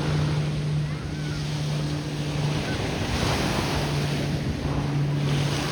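Ocean surf washing in, with a wave swell about three seconds in and another near the end, and wind buffeting the microphone. A steady low engine hum runs underneath, dropping out now and then.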